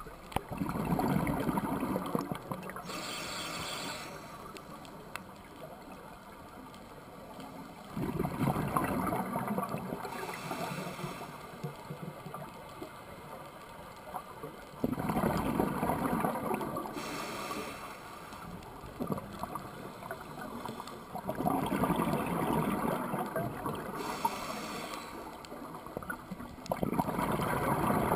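Scuba diver breathing through a regulator underwater. About every six or seven seconds a burst of exhaled bubbles gurgles for two to three seconds, then a short hiss of inhaled air follows, five breaths in all.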